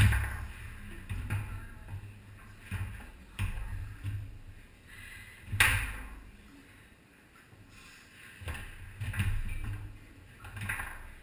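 Foosball play on a Tornado table: irregular sharp knocks and clacks of the ball struck by the figures, with low thuds from the rods and table. The hardest hits come right at the start and about five and a half seconds in.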